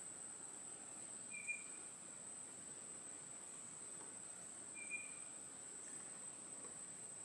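Steady high-pitched trilling of insects in the woods, with two brief chirps about three and a half seconds apart.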